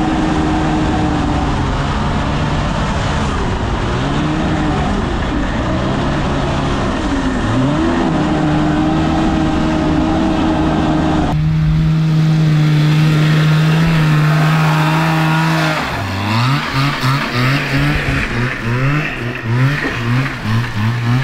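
Kawasaki 440 two-stroke snowmobile engine in a go-kart running hard under load, its pitch holding and dipping. From about two-thirds of the way in it revs up and down over and over, about once a second. The drive belt is worn nearly through, so the kart has little power.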